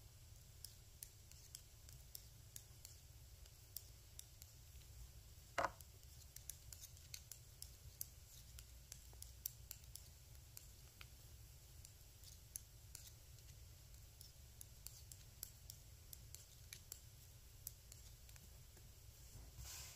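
Metal knitting needles clicking together softly and irregularly as stitches are worked, with one louder click about five and a half seconds in.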